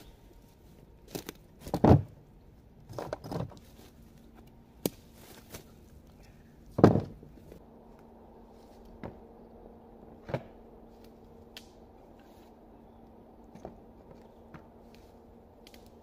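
Footsteps and crunching in the dry leaves, pine needles and twigs of a forest floor. The two loudest crunches come about two and seven seconds in, followed by sparse, fainter rustles and clicks.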